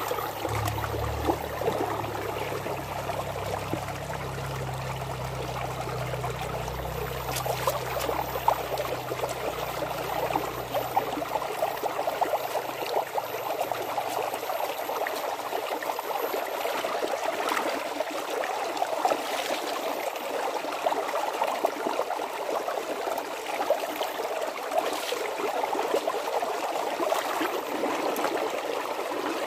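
Steady running water of a stream, trickling and splashing, with a low rumble underneath for about the first ten seconds.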